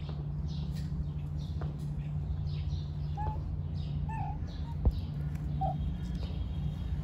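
Steady low outdoor street hum with several short, high chirps scattered through it and a single soft knock about five seconds in.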